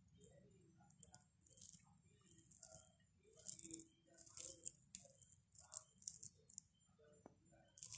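Faint, irregular soft squishes and crackles of fingers kneading cooked rice with lentil curry on a plate, a short burst about every half second to second.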